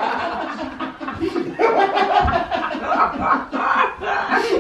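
Men laughing and chuckling, mixed with wordless vocal noises.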